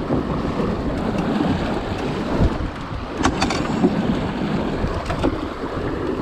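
Water rushing and splashing along a Wanderer sailing dinghy's hull as it sails through choppy sea, mixed with wind. A few sharp clicks come about three seconds in.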